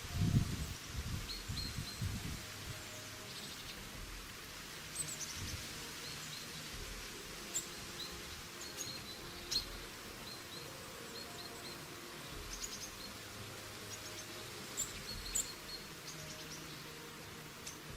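Forest songbirds giving scattered short chirps and quick descending calls over the steady rush of a mountain stream. A few low thumps in the first two seconds.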